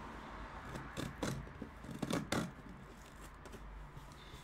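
A cutter blade slitting the packing tape along a cardboard box's seam, in several short scraping strokes.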